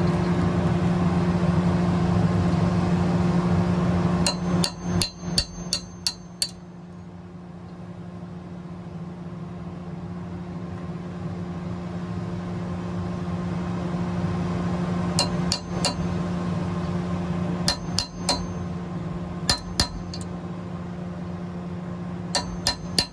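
Hammer blows on a steel punch, driving old rivets out of an M35 2.5-ton truck's axle flange: about five bursts of three to seven quick metallic strikes, the longest burst about five seconds in. A steady low hum runs underneath.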